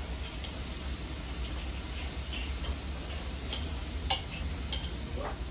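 Knife and fork cutting into a large grilled steak on an iron sizzle platter: metal cutlery clicking and scraping against the plate in about six sharp ticks, scattered irregularly, over a steady hiss.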